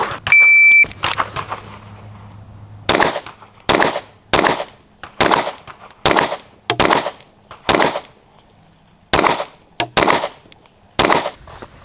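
A shot timer beeps once. A 9mm pistol then fires about ten single aimed shots in slow, uneven succession, roughly one a second, in a timed ten-rounds-in-twenty-seconds drill.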